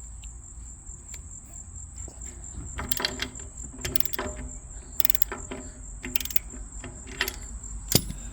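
Ratcheting breaker bar working a trailer wheel's lug nut: a string of separate metallic clicks and clanks spread over several seconds, the sharpest near the end. Steady insect chirping runs underneath.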